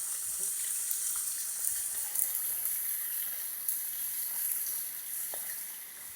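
Small waterfall running: a steady high hiss of falling water, with a few faint clicks on top.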